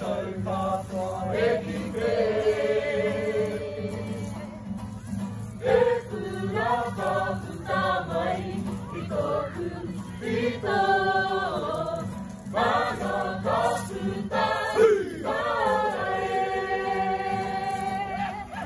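A kapa haka group of men and women singing a Māori waiata-a-ringa (action song) together, with several long held notes.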